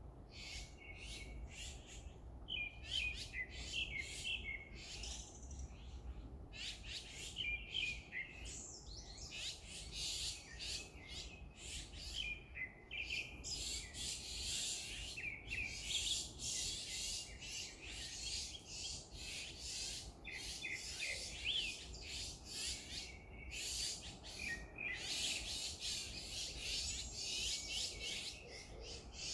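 Many small birds chirping and twittering together, a dense chorus of quick overlapping calls.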